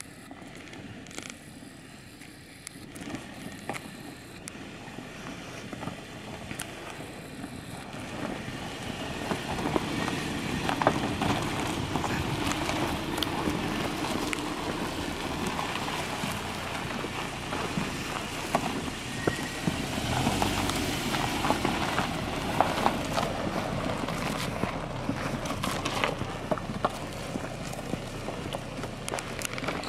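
Subaru Outback driving slowly over slickrock and a gravel track, its tyres crunching and popping small stones over the low sound of the running engine. It grows louder about ten seconds in as the car draws close, then stays close as it passes.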